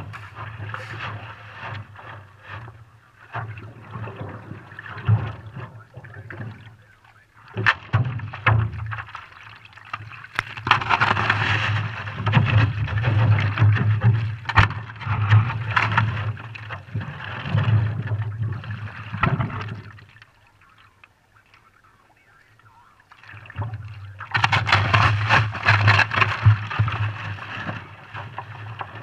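Stand-up paddleboard paddled through broken lake ice: stretches of paddle splashing and sloshing water with scattered sharp knocks, dropping to a quiet spell for a few seconds about two-thirds through.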